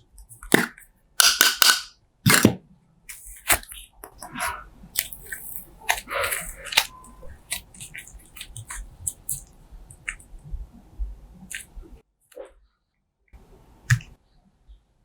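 Slime being squeezed and poked by hand, giving irregular sticky clicks, crackles and air-bubble pops, the loudest a little after a second in and again at about two and a half seconds.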